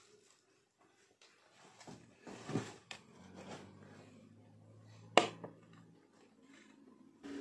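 Handling noises as a stemmed glass goblet is lifted and moved, then a single sharp clink about five seconds in as the glass is set down on a glass tabletop.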